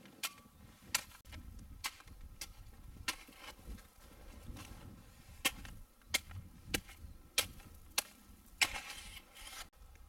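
Snow shovel digging into packed snow: more than a dozen short, sharp chops and scrapes at an uneven pace, roughly one every half second to second.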